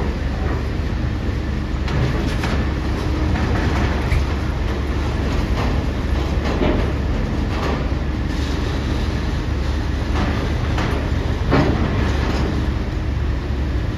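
A steady low rumble with irregular metallic clanks and knocks about every second or so, from heavy vehicles rolling over the steel deck and ramp joints of a ferry's vehicle deck.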